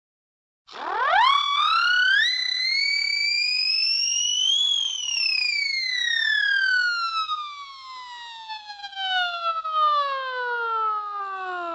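Cartoon sound effect: a single whistle-like tone that starts after a short silence, sweeps quickly up, climbs in small steps to a peak about four seconds in, then glides slowly and steadily down in pitch for the rest.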